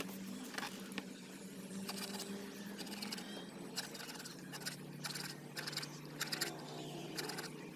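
Faint clicks and taps of a rusty metal plier handled in a plastic tray, with a sharp knock at the very start as it is set down, over a steady low hum.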